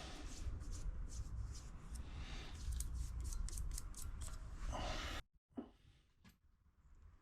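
Rustling handling noise with a run of quick sharp clicks, consistent with scissors cutting an adhesive pad. The sound cuts out abruptly about five seconds in, then only faint handling remains.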